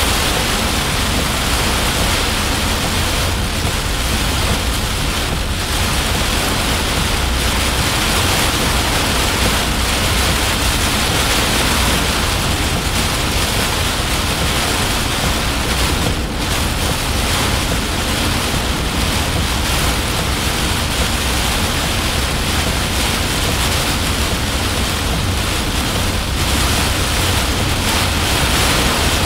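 Heavy downpour drumming on a vehicle's roof and windows, heard from inside as a loud, steady rush of noise.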